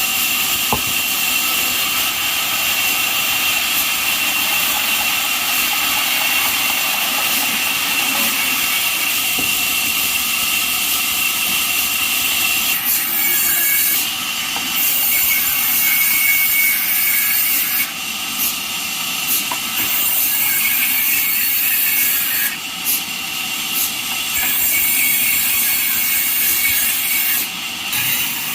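Band sawmill cutting jackfruit wood: a loud, continuous sawing noise with a steady high whine. The sound of the cut shifts several times in the second half.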